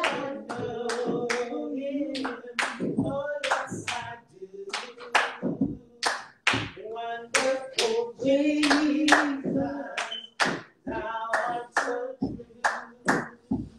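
A gospel song sung in church, with held notes, accompanied by hand clapping about twice a second.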